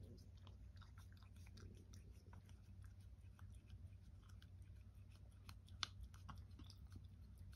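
A cat licking wet food from a small cup held in a hand: faint, quick, irregular wet tongue clicks, with one sharper click about six seconds in.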